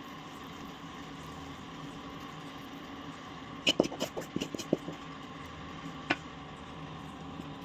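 Kitchen utensils knocking and tapping against a plastic box as a sticky Marie-biscuit, ghee and sugar sweet mixture is pressed into it: a quick run of light knocks about halfway through and one more tap a little later, over a steady background hum.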